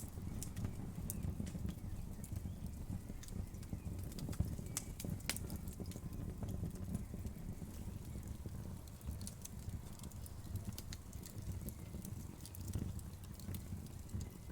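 Wood fire crackling, with sharp irregular pops and snaps of burning wood over a low steady rumble of the flames.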